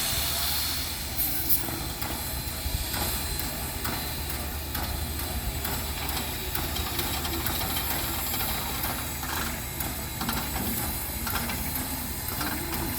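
Southern Railway 4501 steam locomotive standing, with a loud steam hiss dying away at the start. After that comes a steady low hum with a light hiss and scattered faint clicks.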